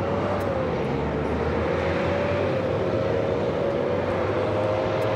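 Jet aircraft engine running at the airport: a steady whine that wavers slightly in pitch, over a low rumble.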